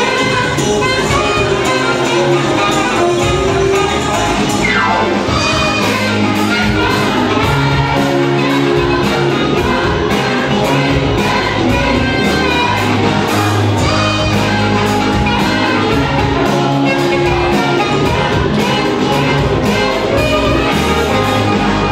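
Live band playing: saxophone, electric guitars, keyboard and drum kit together, with a steady drum beat throughout.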